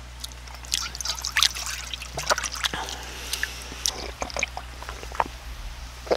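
Makgeolli poured from a plastic bottle into a small metal bowl, trickling and dripping, with many small scattered clicks.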